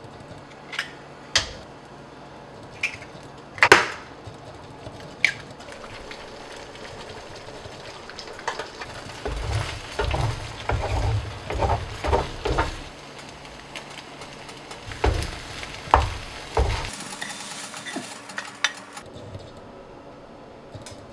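Eggs frying in a nonstick pan: a few sharp taps in the first seconds as eggs are cracked into it, a steady sizzle, then a wooden spatula scraping and knocking against the pan in bursts as the eggs are scrambled.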